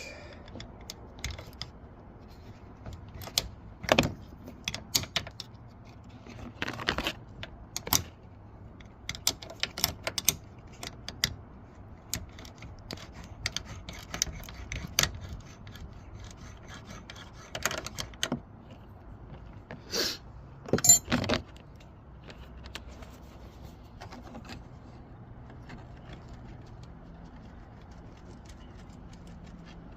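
Scattered metal clinks, clicks and scrapes of a 10 mm wrench working the mirror's mounting bolts on a car door, the loudest clanks about two-thirds of the way through.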